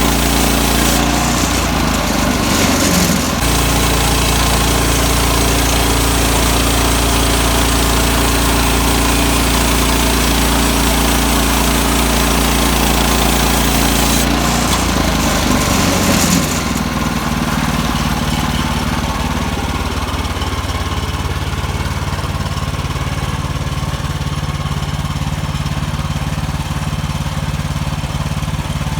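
Gas engine of a Woodland Mills portable bandsaw mill running steadily under power while sawing. Its sound changes briefly twice, about a second in and about a quarter of a minute in, and after that the hiss in the upper range drops away.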